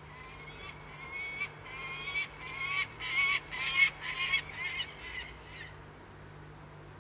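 Peregrine falcon giving its warning call: a rapid run of harsh, repeated notes that grows louder to a peak about four seconds in, then fades away.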